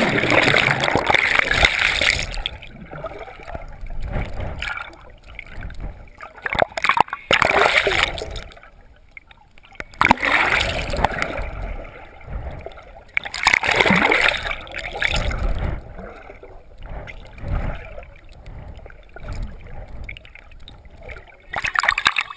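River water splashing in several loud bursts a few seconds apart, with gurgling and sloshing between them.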